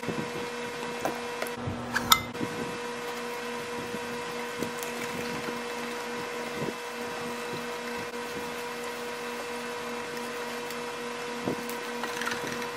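A steady machine-like hum, like a small motor or fan running, with faint scattered taps and a sharp click about two seconds in.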